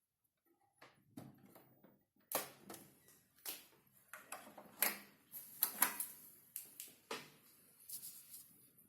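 Irregular clicks, taps and knocks of hard computer parts being handled and fitted during assembly.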